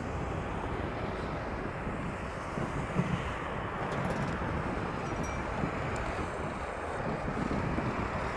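Boeing 787-8 Dreamliner on final approach with its landing gear down, its jet engines giving a steady rushing roar, mixed with wind on the microphone. There is a brief louder bump about three seconds in.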